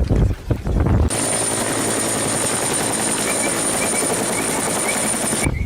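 Helicopter sound effect: steady rotor and engine noise with a high whine, starting abruptly about a second in after a few low knocks and cutting off suddenly near the end.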